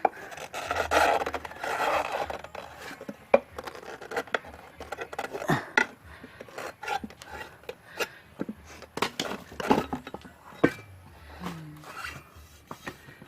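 Rubber rubbing and scraping as a tire is worked by hand on its wheel rim, with scattered clicks and knocks of tools and metal. The rubbing is heaviest in the first couple of seconds.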